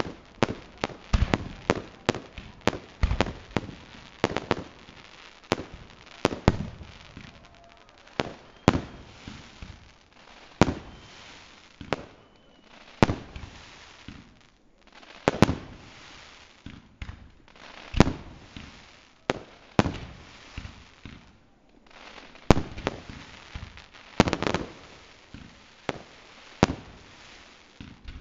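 Aerial fireworks bursting in a continuous display: a stream of sharp bangs at irregular intervals, roughly one to two a second, with short lulls about halfway through and again past two-thirds of the way.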